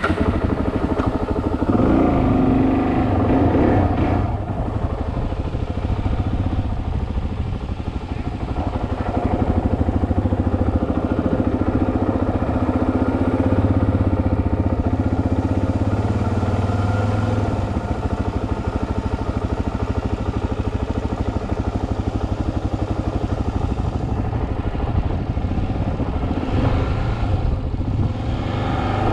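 Suzuki DR-Z400S's single-cylinder four-stroke engine running at low speed under light throttle, its note rising and easing a little as the bike is ridden slowly. The engine note swells briefly about two to four seconds in.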